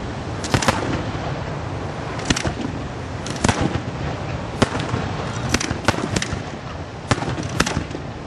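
Aerial firework shells bursting: a string of sharp bangs at irregular intervals, roughly one a second, with steady noise filling the gaps between them.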